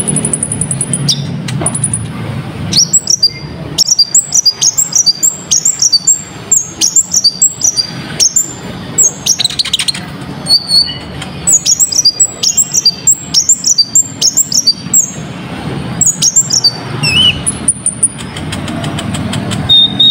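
Kolibri ninja sunbird (konin) singing a fast, high-pitched chirping song packed with mimicked phrases. The song comes in quick runs of short, sharp notes, with short pauses about halfway and again near the end, over a steady low hum.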